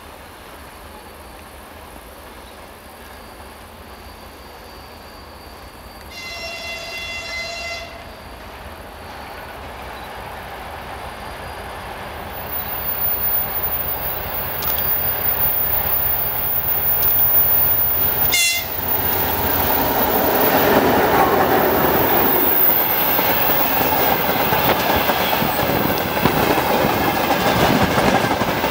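2TE10S diesel freight locomotive sounding its horn in one blast of about two seconds as it approaches, with a short second toot later. Its rumble then builds as it passes, and the freight wagons follow with the clickety-clack of wheels over rail joints.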